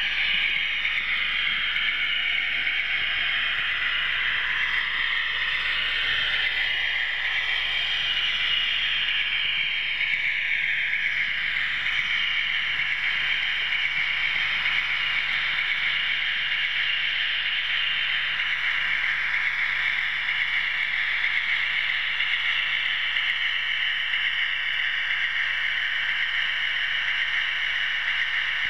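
OO gauge model train running steadily along the track, a continuous high whirring and rattling of motor and wheels on rail heard from on board.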